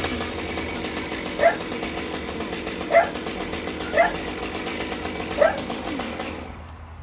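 A dog barks four times, one to one and a half seconds apart, over a chainsaw running steadily. The chainsaw cuts off about six seconds in.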